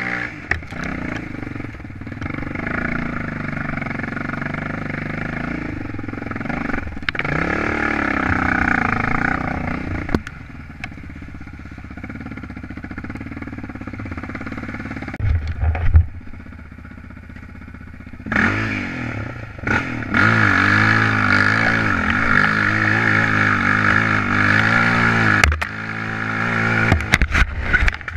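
A vehicle's engine working at changing speed as it climbs, its pitch rising and falling with the throttle. It drops to quieter running a third of the way in, then rises again about two-thirds of the way through.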